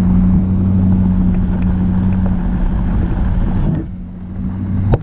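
Vehicle engine and road noise heard from inside the cab while driving, a steady low hum. It dips briefly about four seconds in, and a sharp click comes just before the end.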